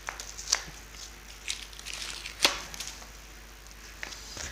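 Parcel packaging being torn and crinkled open by hand: scattered rustles and crackles, with sharper snaps about half a second and about two and a half seconds in.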